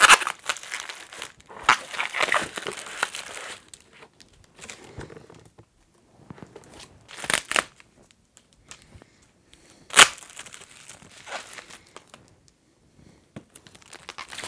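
Packaging handled by hand: a cardboard box opened and plastic bubble wrap pulled off a package, in separate bursts of crinkling and rustling with quiet gaps between, and one loud sharp crackle about ten seconds in.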